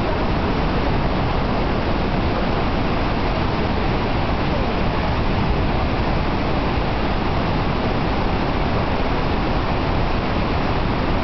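Steady roar of the Iguazu Falls waterfall, a constant rushing of falling water without breaks or changes.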